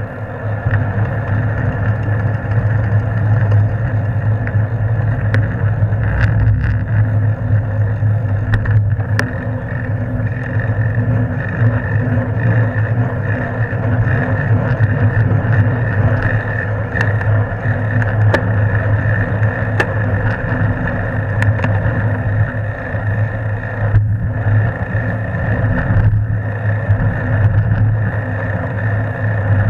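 Steady wind and road rumble picked up by a camera mounted on a moving bicycle, with a constant low hum and scattered light ticks from the mount and frame over bumps.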